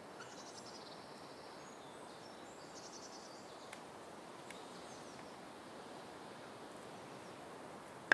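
Countryside outdoor ambience: a steady low hiss with a few short, high, rapid chirping trills twice in the first few seconds. A sharp click near the end is the loudest sound.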